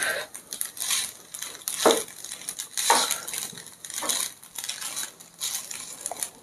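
Metal kitchen tongs tossing and stirring spaghetti in a frying pan, scraping and clinking against the pan in repeated strokes about once a second.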